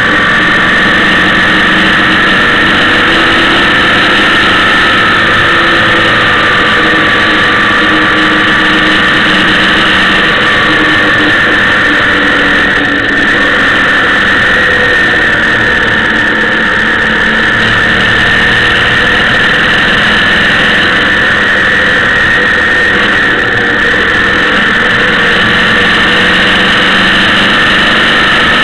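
Motorcycle engine running steadily at cruising speed, heard from on board a moving bike, with a steady high whine and road and wind noise.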